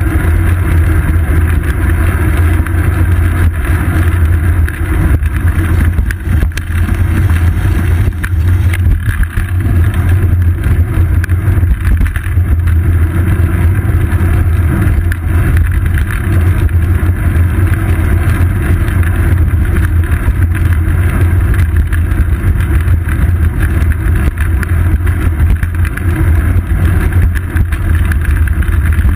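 Steady, loud low rumble of wind buffeting and road vibration picked up by a GoPro Hero 2 mounted on the seat post of a moving bicycle.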